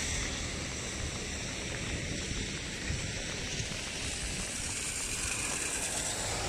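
Steady hiss of rain falling on floodwater, with a low rumble of wind on the microphone.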